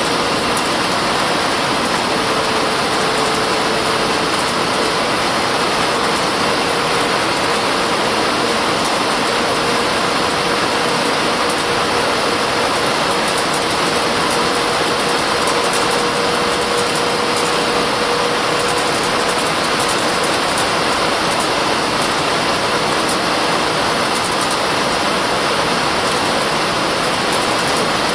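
Steady cabin noise of an Airbus A319 airliner: a loud, even rush of jet engine and airflow noise with a faint steady hum, unchanging throughout.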